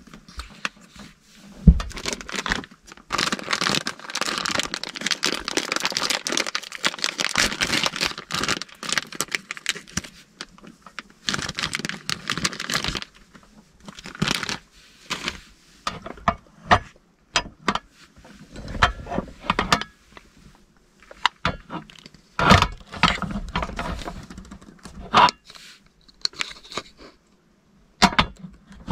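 Plastic packaging crinkling and tearing as a packet is opened, in two stretches of dense rustling. Scattered clicks and knocks follow as sausages are laid on the bread and the metal hot sandwich maker is shut.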